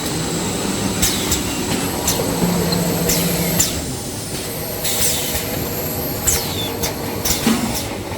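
Toilet paper and kitchen towel roll production machinery running steadily, with short high squeals that fall in pitch, repeated irregularly.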